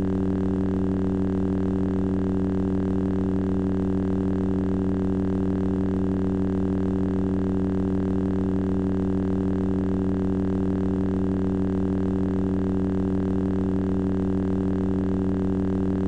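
Lightsaber sound effect: the blade's steady idle hum, unchanging in pitch and loudness.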